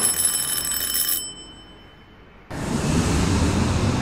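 An electric doorbell ringing with a high, steady ring that cuts off about a second in. After a short lull, a steady background hiss and rumble of outdoor ambience sets in.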